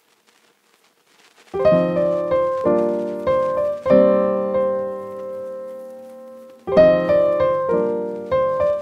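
Background piano music: a slow phrase of struck notes, each ringing and fading, begins about a second and a half in, and the phrase starts over near the end.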